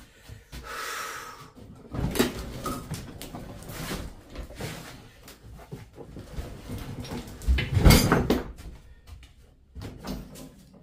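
Scrap metal being handled and loaded: an irregular run of knocks, clanks and scrapes, with a sharp knock about two seconds in and a heavy thump, the loudest sound, about eight seconds in.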